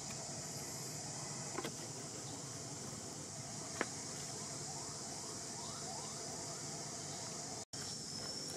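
Steady high-pitched insect chorus, with a faint run of repeated rising chirps in the middle and two small clicks. The sound cuts out for an instant near the end.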